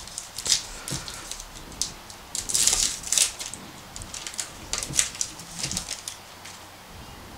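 Trading-card pack wrapper crinkling as it is torn open and the cards are pulled out: a run of sharp crackles, densest about two and a half to three seconds in, thinning out near the end.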